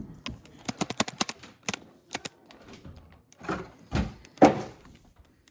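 Plastic Lego pieces being handled, a quick run of light clicks and taps, then a couple of louder knocks about four seconds in.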